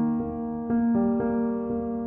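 Background music: electric piano playing a slow melody over held chords, a new note about every half second.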